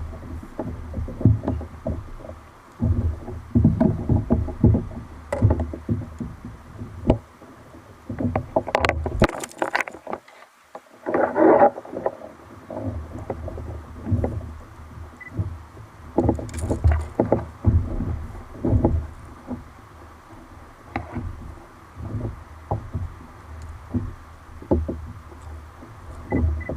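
Water slapping and sloshing against a fishing kayak's hull in irregular bursts, with a brief louder burst of noise about eleven seconds in.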